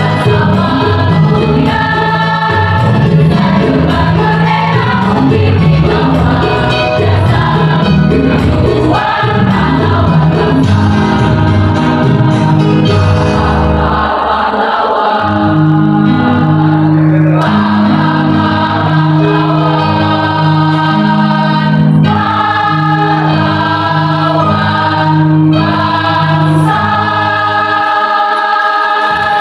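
A mixed choir of women and men singing in parts, accompanied by an electronic keyboard.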